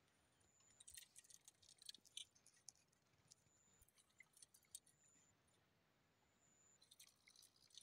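Near silence, with faint high clicks and ticks in scattered clusters, mostly about a second in and again near the end.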